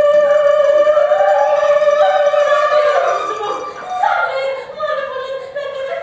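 Singing: one long held note for about three seconds, then shorter notes sliding up and down, with a string instrument played along.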